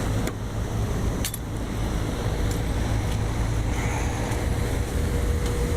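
Rooftop AC unit running with a steady low hum, waiting on a replacement blower belt so its coil ices up. A few light clicks come in the first second or so, and a faint steady tone joins in the second half.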